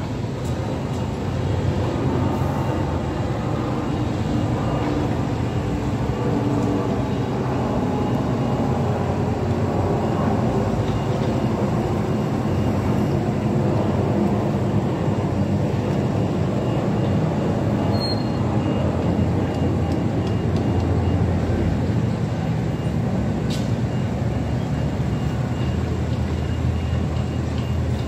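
Construction-site diesel machinery, such as tracked excavators, running steadily: a continuous low engine rumble with no clear changes.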